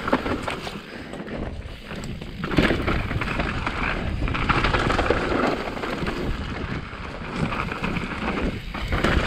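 Specialized Enduro mountain bike descending a loamy dirt trail: a steady rumble of tyres on dirt, broken by frequent short knocks and clatters from the bike over bumps.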